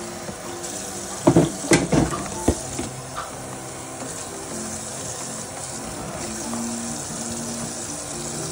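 Dishes being washed: a few sharp clatters of dishes about a second and a half in, over a steady hiss, with soft music in the background.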